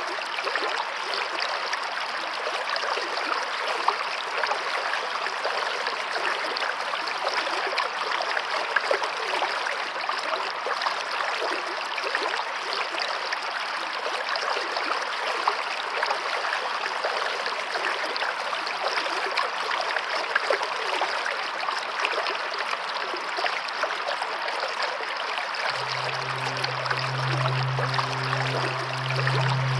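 Steady running water with a fine crackle of splashes. Near the end a low, sustained musical drone comes in beneath it.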